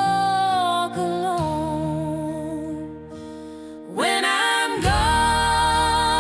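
A slow song with singing: a sung note is held and fades out. The music drops to a quiet moment about three seconds in, then a note slides upward and the accompaniment comes back in full.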